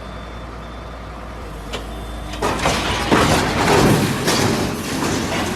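Heavy truck running with a steady low rumble, then a much louder rushing, clattering noise starting about two and a half seconds in that swells in several surges.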